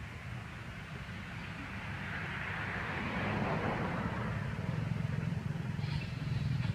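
A road vehicle passing: a steady low rumble, with a hiss that swells to a peak about halfway through and then fades.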